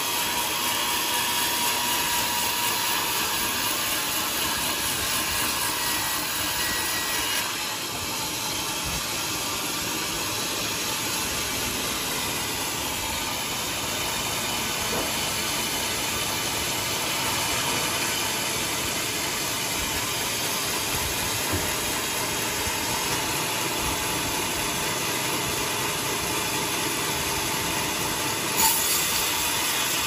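Band sawmill blade cutting lengthwise through a large teak log, with a steady hissing saw noise over the running machine. A short sharp knock comes near the end.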